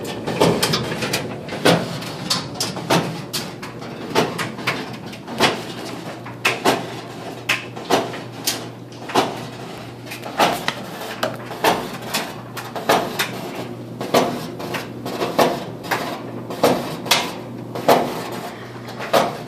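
Maytag Maxima clothes dryer running, with a low steady hum and a knock repeating about once a second, a little unevenly, as the drum turns. The knock is the tumbler striking the outer shell as it rotates.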